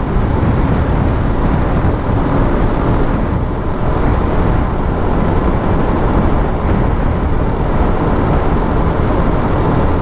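Wind rushing over the microphone of a motorcycle riding at road speed, with engine and tyre noise underneath; a loud, steady noise with no breaks.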